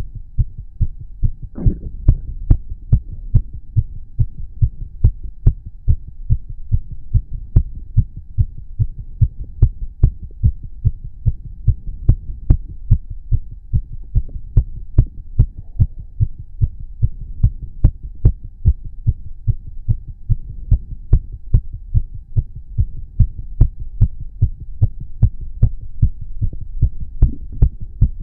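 A man's heart beating fast and regularly after exercise: a steady, even run of low thumps. A short stomach gurgle comes about a second and a half in.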